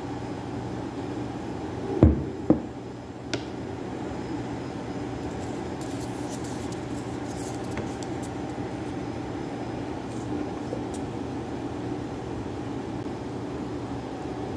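A ceramic bowl set down on a granite countertop: two sharp knocks about half a second apart and a lighter click just after, over a steady low hum in the room.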